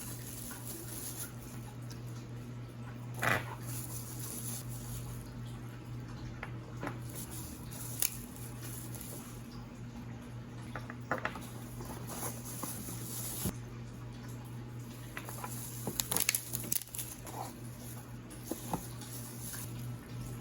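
Household items being handled during fridge cleaning: scattered light knocks and clicks, with a cluster of them around the middle, over a steady low hum.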